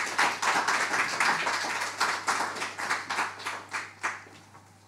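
Audience applauding: dense clapping that thins to a few scattered claps and stops about four seconds in.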